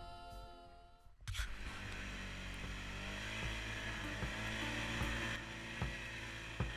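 The end of a song fades out, and about a second in the sound of an ATV being ridden takes over: its engine runs steadily under wind noise, with a few low thumps as it goes over the snowy trail.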